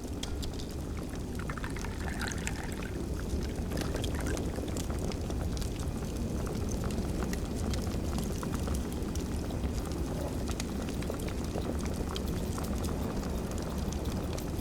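Fire crackling, with scattered sharp pops over a steady low rumble, growing louder over the first few seconds.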